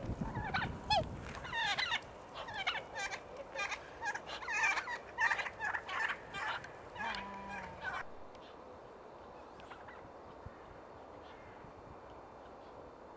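A flock of barnacle geese and other waterfowl calling in many short, overlapping calls. The calls cut off abruptly about eight seconds in, leaving only a faint steady outdoor background.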